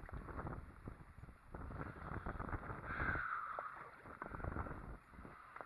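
Wind rumbling on the microphone, with scattered light knocks and a brief higher sound about three seconds in.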